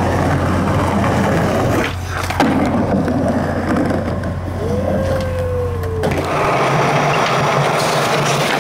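Skateboard wheels rolling with a steady low rumble, and a single sharp clack about two and a half seconds in. The rumble changes character about six seconds in.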